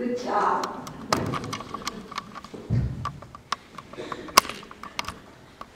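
The end of a congregation's a cappella singing dies away at the start, then scattered clicks and knocks of people settling and handling things at the pulpit, with a low thud a little under three seconds in and one sharper knock about four and a half seconds in.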